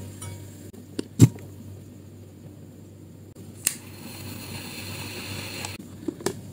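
A sharp metallic click from a flip-top petrol lighter being lit, then a pistol-shaped jet torch lighter clicking on and hissing steadily for about two and a half seconds before cutting off suddenly. Near the end come a few small knocks as the torch lighter is dropped into a plastic bin.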